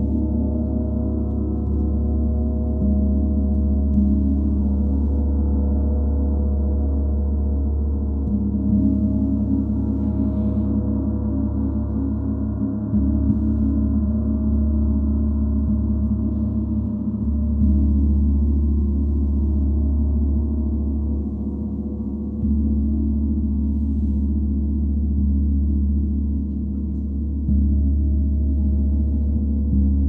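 32-inch Paiste Symphonic gong sounding continuously: a deep, sustained wash of many overlapping tones, freshly struck about every four to five seconds so the sound swells again with each stroke.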